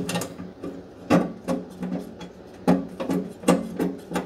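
Hand tools working the screws of a wood stove's blower motor bracket: irregular metallic clicks, knocks and scrapes, a handful of them a second or more apart, over a steady low hum.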